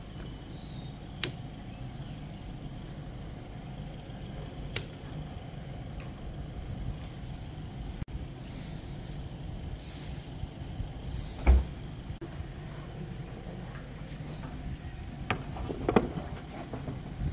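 A few sharp clicks and a heavier knock from camping gear being handled, hooks going onto a metal hanging rail. Near the end come more clicks and knocks as folding metal windscreen panels are set up around a camp stove. A steady low rumble runs under it all.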